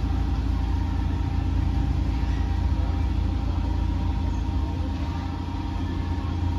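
Swan boat's motor running with a steady low hum and a faint, even whine above it as the boat moves along the water.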